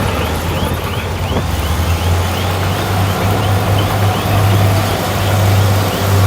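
Heavy diesel earthmoving machinery running steadily, with a deep engine note and a faint high chirp repeating about two to three times a second.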